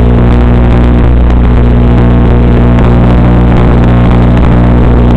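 Loud, unchanging low electrical hum with a stack of steady overtones, typical of the buzz on an analog FPV video link's audio channel. The drone is disarmed, so its motors are not running.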